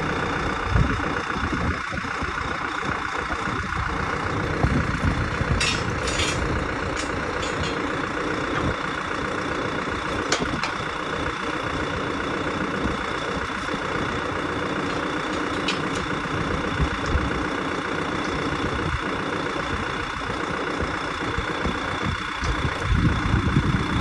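Farm tractor's diesel engine idling steadily, with a few sharp clicks about six seconds in and again around ten seconds.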